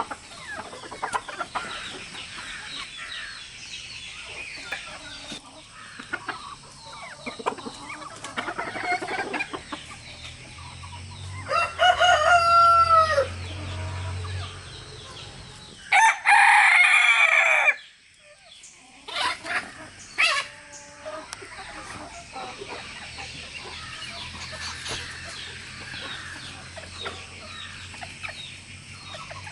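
Roosters crowing: two loud crows a few seconds apart in the middle, over hens clucking throughout.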